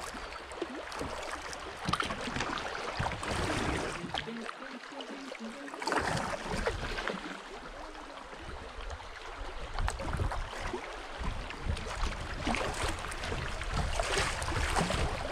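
Swift, high river water rushing and rippling around a kayak, with the splashes of paddle strokes.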